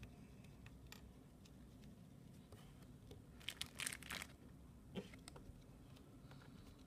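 Near-silent room tone, with a few short, faint rustles and scrapes just past halfway and a single click soon after. They come from fingertips rolling a small ball of air-dry clay on a wooden tabletop.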